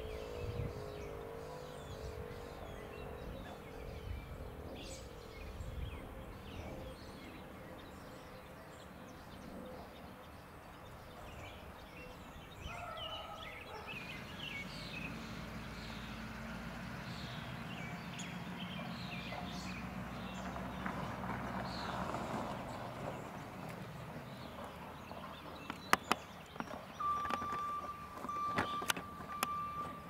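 Federal Signal Model 3 outdoor warning siren winding down, its falling tone fading away in the first couple of seconds. Birds chirp over outdoor ambience, and a vehicle passes in the middle. Near the end come a few sharp clicks and then a steady high electronic beep.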